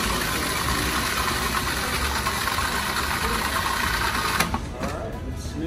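Food processor motor running steadily, pureeing a wet paste. It switches off about four and a half seconds in.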